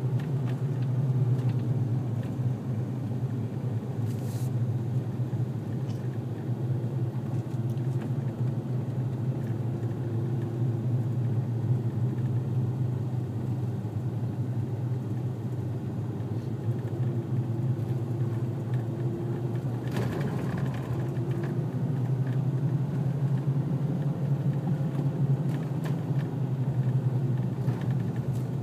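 Steady low rumble of a car rolling down a road, heard from inside the cabin, with one brief click about two-thirds of the way through.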